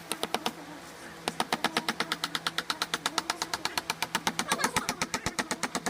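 Carving chisel tapped rapidly into wood, about ten sharp knocks a second. It stops briefly about half a second in and picks up again just over a second in.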